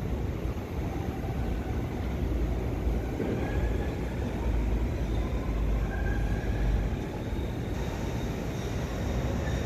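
Electric commuter train approaching slowly: a steady low rumble with a faint whine that rises a little in pitch.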